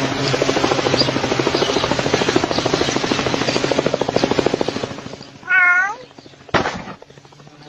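A domestic cat gives one short meow about five and a half seconds in. Before it is a rapid, steady pulsing noise lasting several seconds, and a sharp click comes about a second after the meow.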